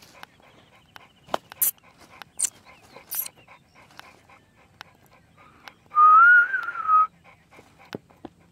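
Cane Corso panting in short breaths, with scattered small clicks. About six seconds in comes one loud, wavering, whistle-like tone lasting about a second.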